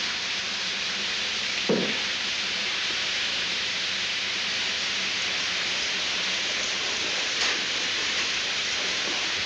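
Water spraying out of a kitchen stove's burners with a steady hiss, and a single knock about two seconds in.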